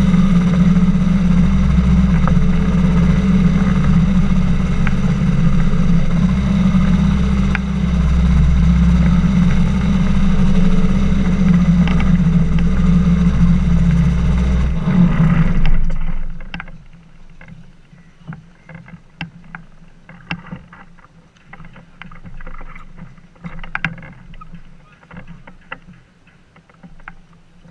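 Flying inflatable boat's engine and propeller running steadily as the boat taxis on the water, then shutting off a little over halfway through. After that, only quieter irregular knocks and water sounds.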